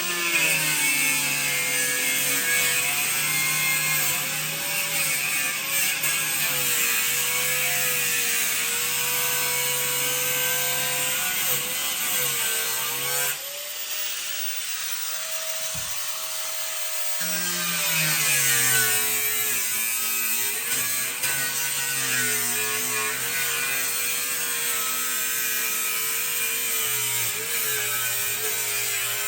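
Electric power saw running under load as it cuts out the opening for a pet door, its motor pitch wavering with the cut. About halfway through, the sound changes for a few seconds before the cutting picks up again.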